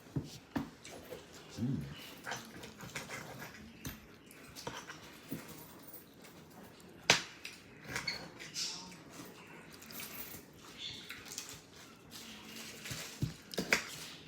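Mealtime eating sounds: scattered clicks and taps of cutlery on dishes at irregular intervals, with one sharper click about seven seconds in and a brief low vocal sound near two seconds in.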